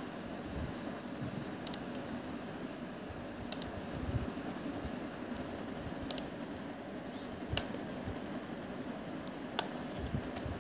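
Computer mouse and Shift key clicking: scattered sharp clicks a second or two apart over a steady background hiss.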